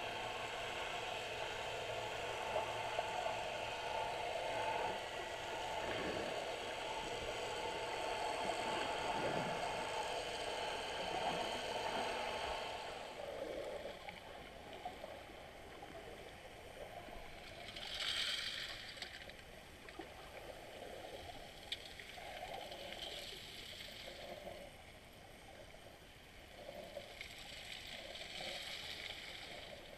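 Underwater sound picked up through a GoPro camera's waterproof housing: a muffled, steady watery hiss and gurgle, louder in the first half, with a brief louder rush about eighteen seconds in and a few faint ticks.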